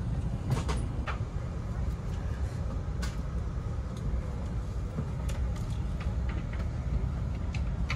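Steady low rumble of an airliner cabin parked at the gate during boarding, with scattered light clicks and knocks.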